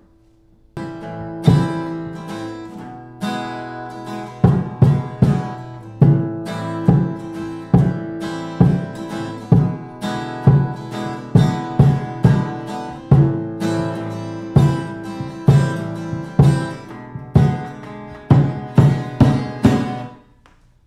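Acoustic guitar strummed through chords over a steady beat of foot stomps on an amplified wooden stomp box, a store-bought piezo-miked cajon pedal that gives a deep, bassy thump. The playing stops just before the end.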